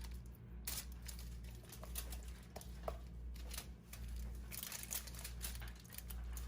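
Hands rubbing a tomato-paste and spice marinade over a whole raw chicken: irregular small clicks and rustles, over a steady low hum.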